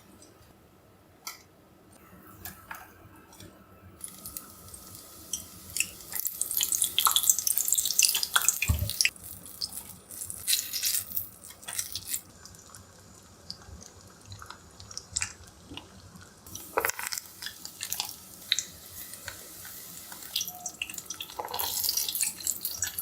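Tempura frying in hot oil: a crackling sizzle full of small pops, which stops and starts abruptly a few times.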